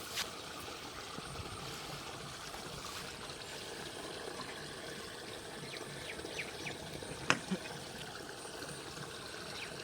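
Steady trickling, flowing water, with a few sharp clicks: one at the start and two close together about seven seconds in.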